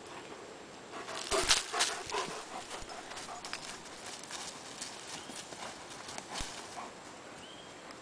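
Footsteps crunching on dry leaf litter and twigs of a forest trail. A dense run of crackling steps comes about one to two seconds in, then lighter, scattered steps follow.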